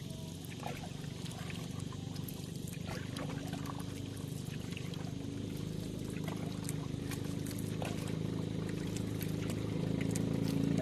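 Wooden paddle strokes in sea water, with splashing and dripping from the blade, over a steady low hum with a few held tones that grows louder toward the end.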